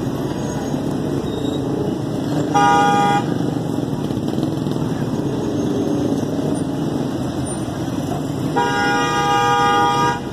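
Vehicle horn honking twice over a steady street-traffic din: a short blast about a quarter of the way in and a longer, louder-held blast near the end.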